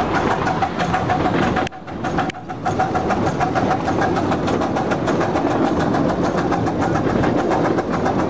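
Cagney miniature train's engine running steadily with a rapid, even pulse and a steady hum, heard from the passenger car. The sound breaks off briefly about two seconds in.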